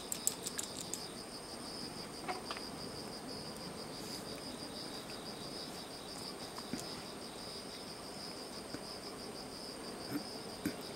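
Insects chirring steadily outdoors in a high-pitched, fast-pulsing trill, with a few light clicks in the first second.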